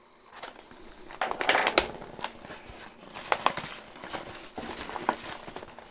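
A cardboard parcel wrapped in packing tape being torn open by hand: irregular crackling, rustling and tearing of tape and cardboard with sharp clicks, loudest about one and a half seconds in and again around three and a half seconds in.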